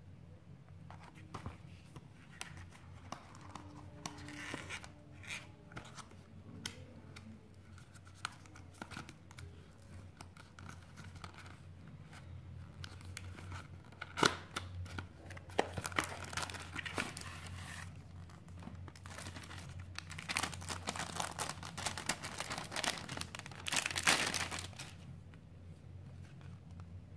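Cardboard retail box of a phone case being handled and opened: scattered sharp clicks and rubbing as the box is turned and its end flap pried open, then stretches of crinkling and tearing packaging as the case is pulled out, loudest about halfway through and again near the end.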